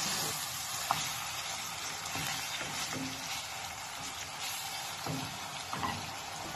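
Chicken pieces frying with onion in hot oil in a pot, sizzling steadily. A wooden spoon stirring them gives a few knocks and scrapes against the pot, the sharpest about a second in and near the end.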